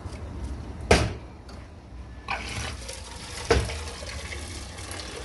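Hot water and boiled bitter orange blossoms being poured from a pot into a metal colander, the water splashing and draining away. Two sharp knocks sound, about a second in and about three and a half seconds in.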